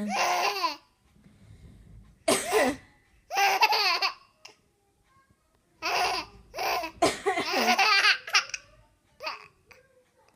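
Young child making a series of short, high-pitched fake coughs, each a brief voiced burst with pauses in between, some sounding close to laughter.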